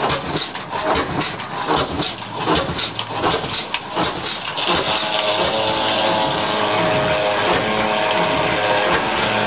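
Old stationary engine driving a circular sawmill, its beat coming about three times a second. About five seconds in, a steady whine from the mill's large circular saw blade joins and takes over.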